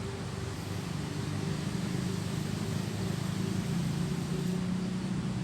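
Steady low drone of a motor vehicle's engine running, with a few steady low tones over a broad rumble that grows a little louder about a second and a half in.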